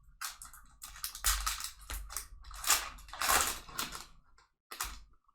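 Foil Pokemon booster pack wrapper crinkling and tearing open in the hands, in a string of irregular rustling bursts.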